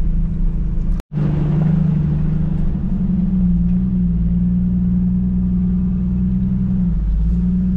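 Off-road vehicle's engine running steadily as it climbs a dirt trail, heard from inside the cabin; the revs rise a little about three seconds in. The sound breaks off for an instant about a second in.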